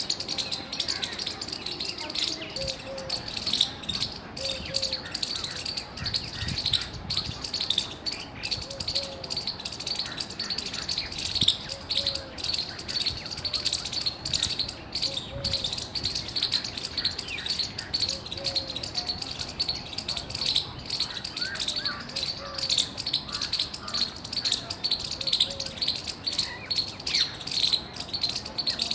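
Squirrel calling loudly: a rapid, continuous string of sharp, high chirps, many a second, without a break.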